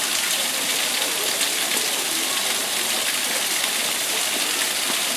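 Steady hiss of running water, unbroken and even.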